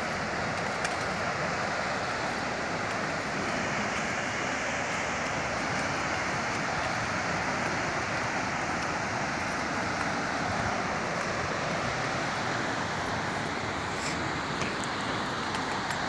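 Steady rushing roar of a waterfall, an even noise that holds level without a break.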